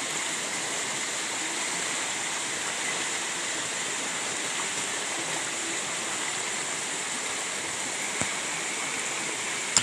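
Shallow mountain stream rushing over rocks: a steady rush of water, with a brief click near the end.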